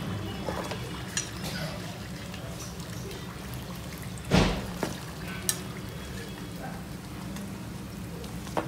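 Samosas sizzling softly in hot oil in an iron kadai while a steel slotted spoon scoops them out, over a steady low hum. The spoon knocks loudly against the pan once, about four and a half seconds in, with a few lighter clinks after.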